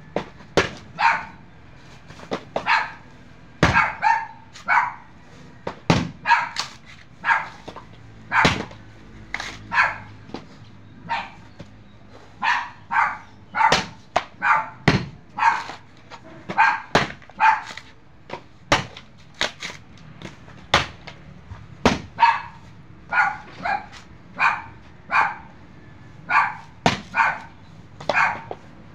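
A dog barking over and over, about one to two barks a second, with a few sharp knocks from coconuts being husked with a long-handled tool.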